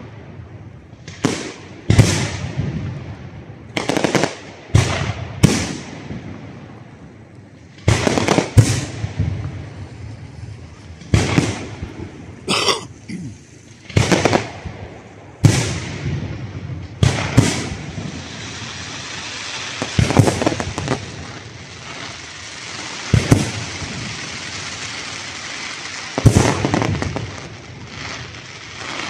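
Aerial firework shells bursting in an irregular run of sharp bangs, each with a short echoing tail. From about two-thirds of the way in, a steady hiss fills the gaps between the bangs.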